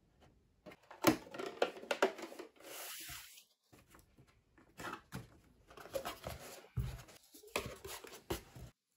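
Masking tape being pulled off the roll and torn into strips, with hands pressing and rubbing them down onto a plywood model boat hull: a run of short, irregular tearing and rustling noises.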